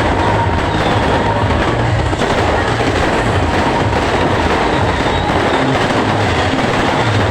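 Fireworks going off in a dense, continuous barrage: a steady mass of crackling and popping with low thuds underneath, without a break.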